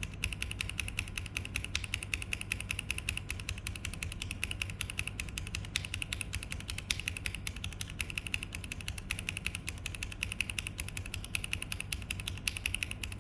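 Fast, continuous typing on a mechanical keyboard fitted with Gateron Pro Yellow linear switches, the keystrokes clattering many times a second.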